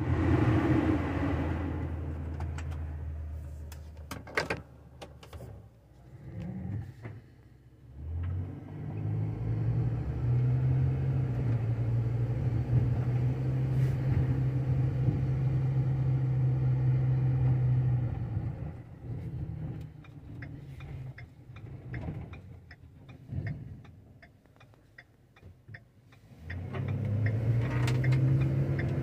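Ford F-450 truck engine heard from inside the cab while driving. It pulls steadily for about ten seconds, eases off to a low idle as the truck slows, then revs up again near the end as the truck pulls away, with a few knocks and rattles early on.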